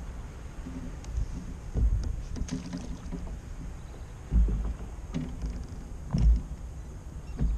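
Low thumps and knocks on a fishing kayak's hull as the angler moves about, over a steady low rumble; the louder knocks come about two, four and a half and six seconds in.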